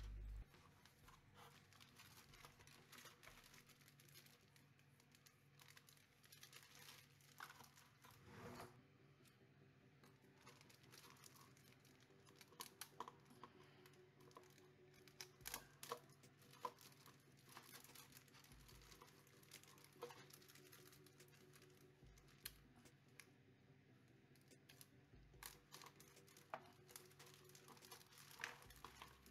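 Faint crinkling of clear plastic bags, with scattered light clicks and rustles, as plastic model kit sprues are handled and taken out of their bags.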